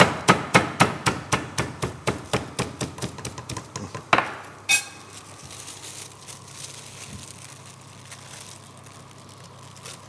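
Chicken breast being pounded thin with a meat pounder through a plastic sheet: quick, even strikes about five a second that stop about four seconds in, followed by one louder knock and a sharp click.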